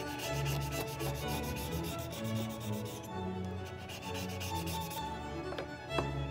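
Razor blade shaving dry bassoon cane flush to the edges of a straight reed shaper: quick, even scraping strokes, easing off about three seconds in, with a few light clicks near the end.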